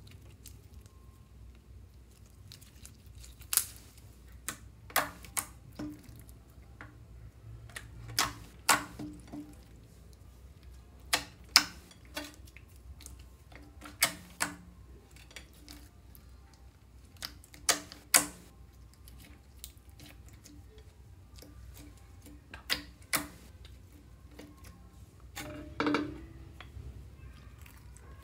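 Clear slime being squeezed and poked by hand, giving sharp, irregular clicks and pops from trapped air, about one every second or two, with a longer squish near the end.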